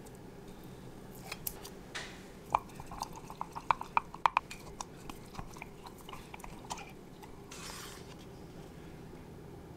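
A spoon clinking and scraping against a glass jar while stirring thick overnight-oat mixture, with a quick run of clinks in the middle. A short rasp near the end.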